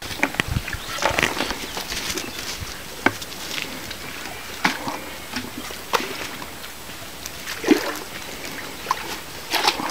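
Pond water sloshing and splashing as a plastic bucket is dipped in and filled, with irregular splashes and knocks.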